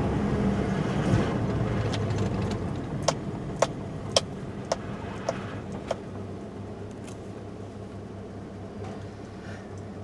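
Car engine and road noise heard from inside the cabin, growing quieter as the car slows toward a stop. A run of about six sharp clicks, roughly half a second apart, comes a few seconds in.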